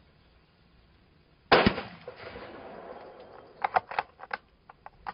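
A single rifle shot from a bolt-action precision rifle about a second and a half in, ringing out over the next second or so. About two seconds later, a quick run of sharp metallic clicks and clacks as the bolt is worked to eject the spent case and closed again.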